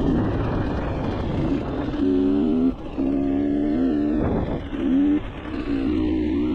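Dirt bike engine working along a trail, revving up and down with short breaks in the engine note as the throttle is closed and opened again. The footage is sped up to 1.5x, which raises the pitch.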